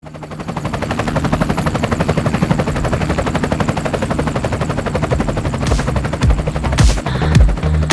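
Electronic music intro: a fast, even stuttering pulse over a held low note, fading in over the first second, with whooshing sweeps and heavy hits near the end as it builds into the track.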